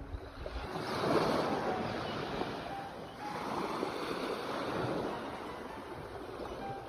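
Sea waves breaking and washing in, with two swells, about a second in and again around three and a half seconds in.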